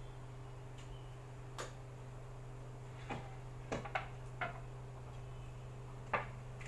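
About six light, sharp knocks of a knife and a wooden cutting board against each other and the countertop as the cake is cut and the board is turned. The sharpest knock comes near the end, and a steady low hum runs underneath.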